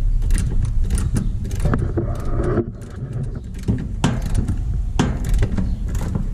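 Irregular metal clicks of a hex key working in the stem of an air-conditioning condenser's brass service valve as it is turned open to let refrigerant into the line set, over a steady low rumble.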